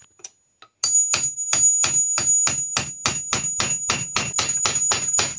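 Rapid hammer blows on a steel punch, about four or five a second, starting about a second in, with a steady high metallic ring throughout. The blows are driving a table saw motor's shaft out of a stuck bearing held in a bearing separator.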